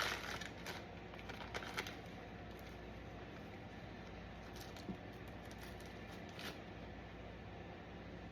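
Light taps and rustles of hands handling food and utensils: a cluster of small clicks in the first couple of seconds, then only a few faint taps over quiet room tone.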